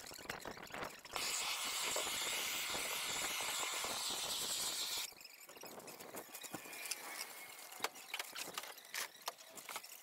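Propane shrink-wrap heat gun firing in a steady hiss for about four seconds, cutting off sharply, then scattered clicks and rustles of the plastic wrap.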